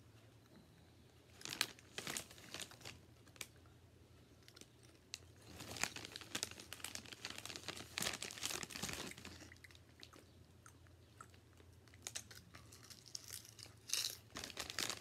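A plastic chip bag crinkling as a hand rummages in it, and potato chips crunching as they are bitten and chewed, in three irregular bouts of crackling.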